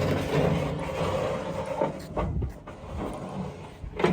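A vehicle engine running steadily, fading over the first couple of seconds, with a few short knocks about two seconds in.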